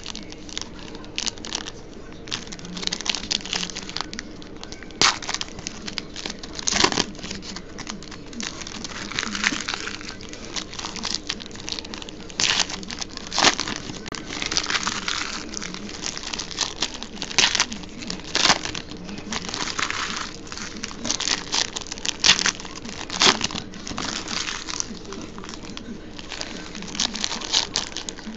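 Foil wrappers of baseball card packs being torn open and crinkled by hand: a rapid, irregular run of crackles and rustles, the sound of packs cracking.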